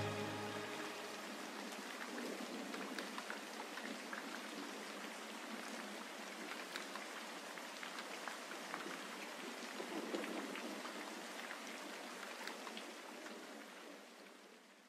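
The track's last notes and bass die away in the first second or so. What remains is a steady crackling hiss with scattered clicks, like rain, which fades out near the end.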